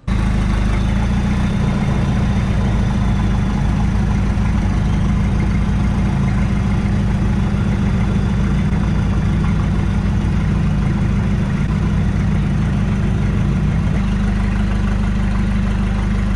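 An engine idling steadily, with a small change in its low note about 14 seconds in.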